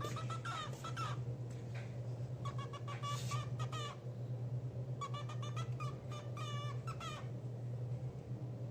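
Cockatiel chirping in three short runs of quick, squeaky calls, over a steady low hum.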